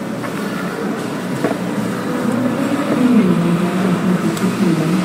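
An engine running steadily, its pitch wandering up and down and settling lower about three seconds in.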